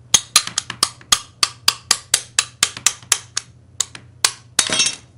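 Hand glass cutter working a piece of white opalescent stained glass: a quick series of sharp clicks and ticks, about four or five a second, ending in a short crackling burst.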